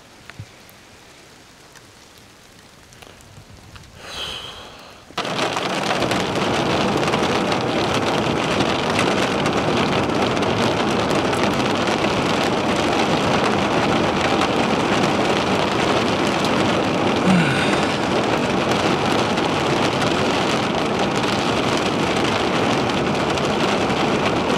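Heavy thunderstorm rain: after about five seconds of quieter hiss, a loud, steady downpour starts suddenly and keeps on evenly.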